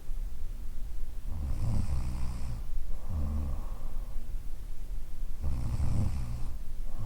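Woman snoring in a steady rhythm, about one breath every four seconds, each breath drawing two low, rumbling snore sounds in turn.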